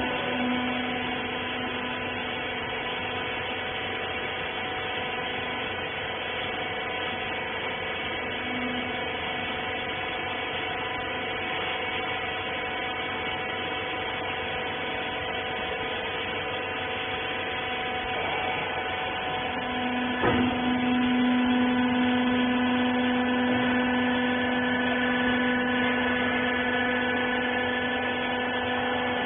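Hydraulic rag baler's power unit running with a steady electric hum. A sharp click comes about twenty seconds in, after which the hum grows louder.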